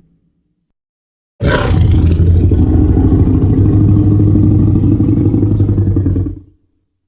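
Movie Tyrannosaurus rex roar sound effect: about a second and a half in, one long roar begins with a sharp, high cry and settles into a deep, rumbling roar lasting about five seconds before fading out.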